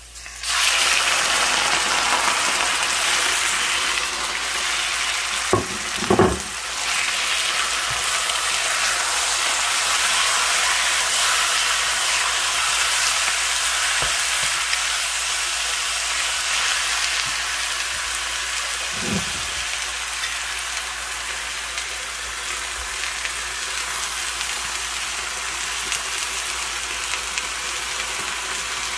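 Raw sliced chicken hitting hot oil in a wok and frying with a steady loud sizzle that starts suddenly as it goes in. It is stirred with a wooden spatula, with a few knocks of the spatula against the pan.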